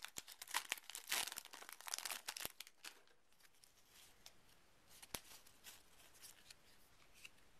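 Foil wrapper of a Yu-Gi-Oh! booster pack being torn open and crinkled for about the first two and a half seconds, then faint handling of the trading cards, with one sharp tap about five seconds in.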